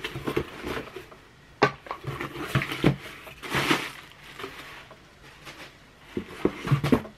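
Clear plastic packaging crinkling and a cardboard box being handled, in irregular rustles with scattered knocks and clicks.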